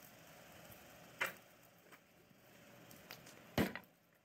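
A few sharp knocks at a blacksmith's anvil: one a little over a second in, a couple of faint taps, then the loudest about three and a half seconds in with a short ring, as a red-hot bar is brought onto the anvil.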